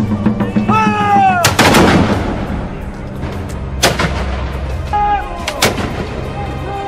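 Flintlock muskets fired by a line of reenactors: a ragged volley about a second and a half in, then further shots near four seconds and near five and a half seconds. Background music plays under the shots.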